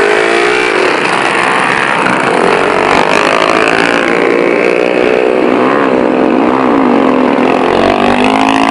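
Engines of several off-road buggies running at once, loud, their pitches rising and falling as they rev.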